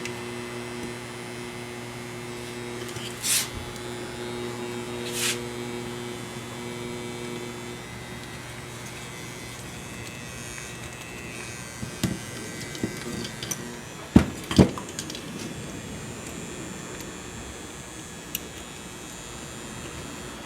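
Transformer buzzing from its loosely stacked metal core laminations, a steady hum with several overtones that dies away by about halfway through. A few knocks and taps from handling follow, the loudest a pair of sharp knocks.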